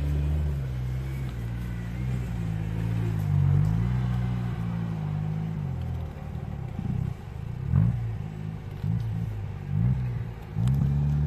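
Off-road race vehicle's engine running at fairly steady revs, then revved hard over and over in short bursts, the pitch rising and falling quickly, as it works through the course.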